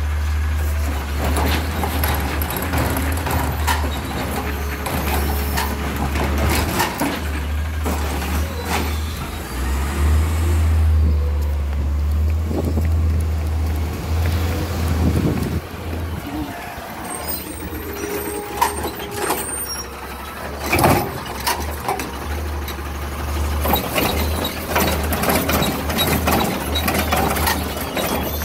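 Autocar ACX garbage truck with a Heil Rapid Rail automated side-loader arm: engine running with a steady low drone as the hydraulic arm grabs, lifts and tips wheeled carts, with repeated clanks and knocks of the carts and arm. The drone drops away for several seconds past the middle, then returns.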